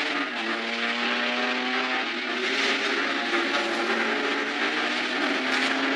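Cartoon car engine sound effect, a steady motor sound for a vehicle driving along, over background music with held notes that change pitch every second or so.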